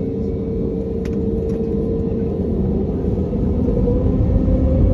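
Airbus A320neo's engines heard inside the cabin on the ground: a steady rumble with a hum, growing louder and rising slightly in pitch about three and a half seconds in.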